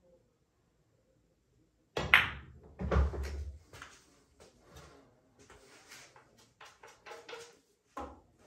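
Pool balls knocking on a pool table: a sharp clack about two seconds in, a heavier knock with a low thud a second later, then a run of lighter rattling knocks and one more sharp clack near the end.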